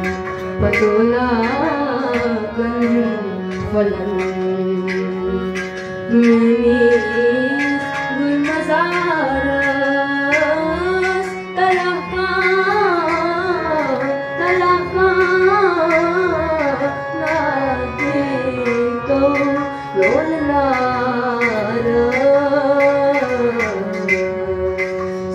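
A boy singing a Kashmiri folk song with a wavering, ornamented melody line. He is accompanied by regular strokes on a clay pot drum (nout) and a steady held drone beneath the voice.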